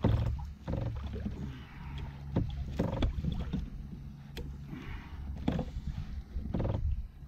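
Handling noise from unhooking a small, deeply hooked fish in a kayak: scattered clicks and knocks of hands, line and rod over a low rumble of wind on the microphone. A few short buzzy grunts come near the start, about three seconds in and near the end.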